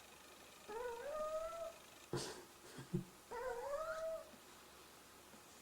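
Sleeping Beagle puppies making two long, squeaky, rising whine-like sounds, one near the start and one past the middle, with a short snuffle between them: the squeaky snoring of very young pups.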